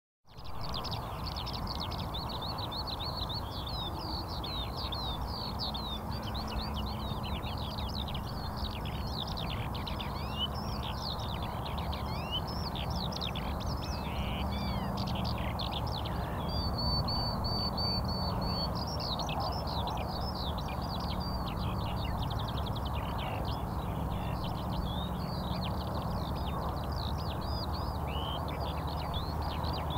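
Many small birds chirping densely and continuously over a steady low background noise, with one steady high whistle for about two seconds midway.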